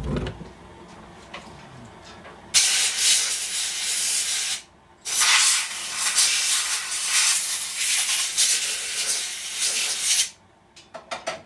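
Compressed-air blow gun blowing down a chainsaw's crankcase around the cylinder base: a hissing blast of about two seconds, a brief pause, then a longer blast of about five seconds.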